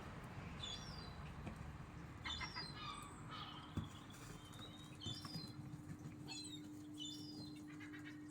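Small birds giving short, high chirps, a quick call every second or so. A steady low hum comes in about three seconds in.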